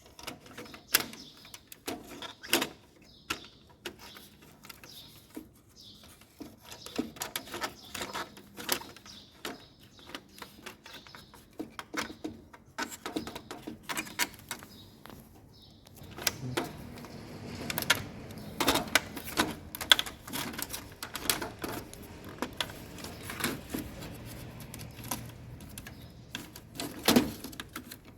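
Irregular clicks and light knocks of plastic parts being handled as a washing machine's main control board is fitted into its housing and snapped into its locks. A faint low hum joins about halfway through.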